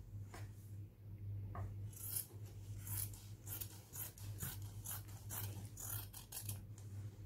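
Large dressmaking scissors cutting through cotton fabric on a table, a run of short crisp snips about two a second that starts about two seconds in. A steady low hum sits underneath.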